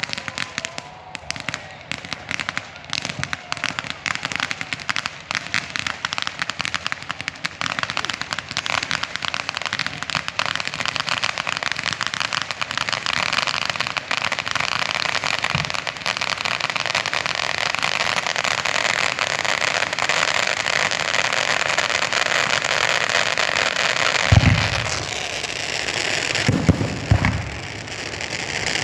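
Fireworks display: rapid crackling and popping of many small charges that thickens into a continuous crackle, then several loud booming bursts near the end.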